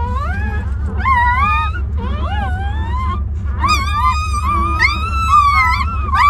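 Newborn puppies whining and crying, high cries that rise and fall in pitch, several overlapping at once in the second half, over a steady low hum.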